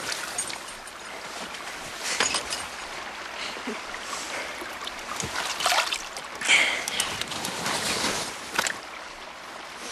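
Stream water running, with irregular splashes and sloshing as clothes are rinsed in it by hand.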